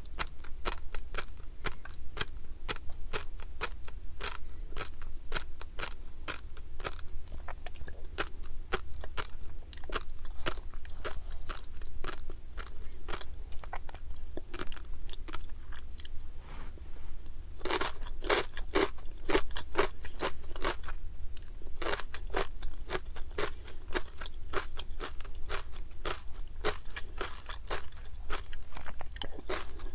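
Close-miked chewing of tobiko, flying fish roe, with a rapid run of small crisp pops as the eggs burst between the teeth. The pops come thickest for a few seconds a little past the middle.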